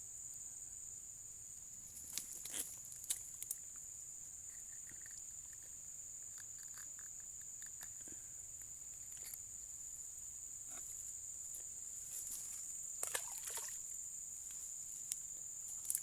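Steady high-pitched drone of insects, with occasional faint clicks and rustles a few seconds in and again near the end.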